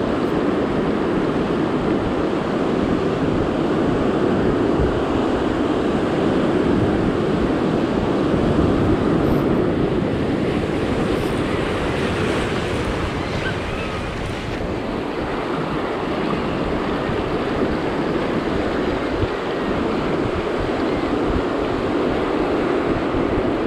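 Rough ocean surf breaking and washing over the rocks, a steady rushing wash, with wind buffeting the microphone.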